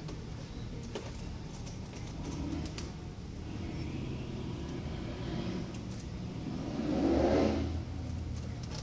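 Faint small clicks of a precision screwdriver driving the iPad 3's LCD retaining screws, over a steady low hum. About seven seconds in, an engine-like sound swells up and fades, the loudest thing heard.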